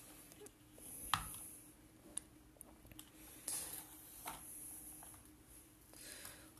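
Faint handling sounds of a plastic toy excavator being worked by hand in sand: a few light plastic clicks, the sharpest about a second in, and brief soft scraping of sand.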